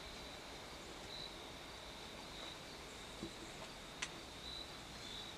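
Faint evening field ambience with a steady, high-pitched insect trill that swells slightly now and then, and one sharp click about four seconds in.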